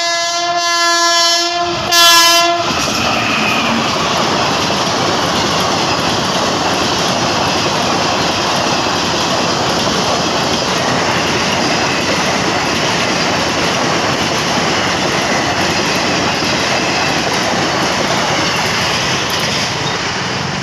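A locomotive horn sounds a long blast, broken briefly twice, and stops about two and a half seconds in. Then a passenger train's coaches roll past close by with loud, steady wheel and rail noise that eases a little near the end.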